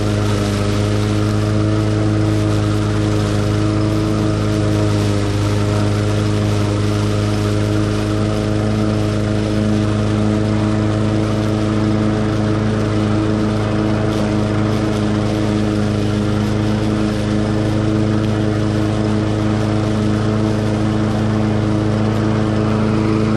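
Cub Cadet SC500K walk-behind lawn mower's 173cc engine running at a steady, unchanging speed while cutting grass.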